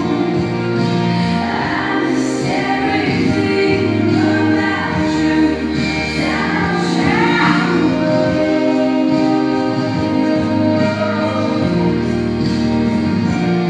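Music with singing: a sung vocal line wavering over long held chords.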